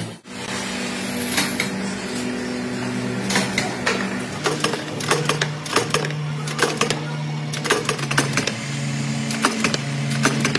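Background music with low held notes changing pitch about once a second, over irregular sharp clicks and taps.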